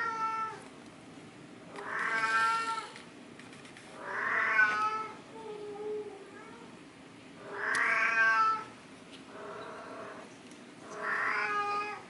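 A cat meowing over and over, one call about every two seconds, each about a second long, with some calls fainter than others.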